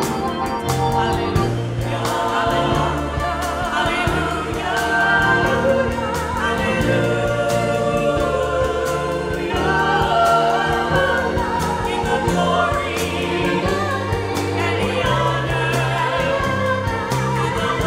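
Mixed church choir singing a hymn with instrumental accompaniment, held bass notes and a steady percussion beat.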